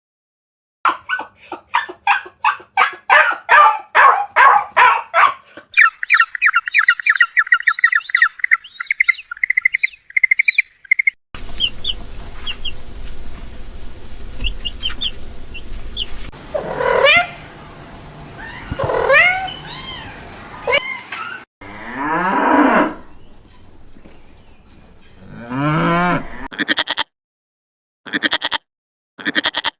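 A run of different animal calls, cut one after another. First come rapid repeated calls, then a fast high trill. Cattle mooing with rising and falling calls fills the second half, and short evenly spaced calls come near the end.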